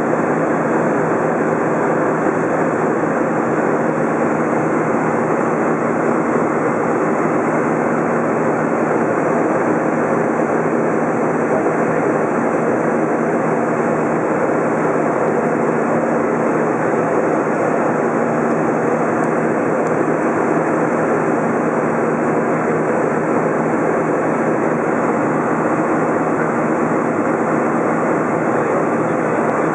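Steady cabin noise of an Airbus A320 in flight, heard inside the cabin from a window seat over the wing: the jet engines and rushing air make an even, unbroken rush with a faint low hum underneath.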